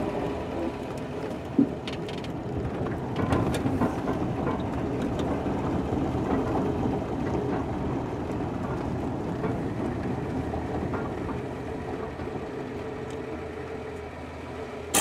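1936 Hudson Terraplane's straight-six engine running while the car drives, heard from inside the cabin along with road noise; the sound eases off as the car slows near the end. A couple of sharp knocks come in the first few seconds.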